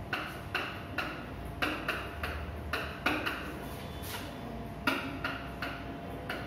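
Marker squeaking and scratching on a whiteboard in a string of short strokes, about two a second, as lines and letters are written.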